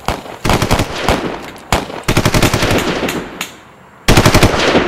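Rapid automatic gunfire in three bursts, the last one the loudest, coming after a short lull.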